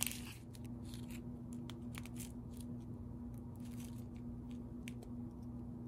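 Small plastic bags of square resin diamond-painting drills being handled, giving faint, scattered crinkles and rustles of the plastic. A steady faint hum runs underneath.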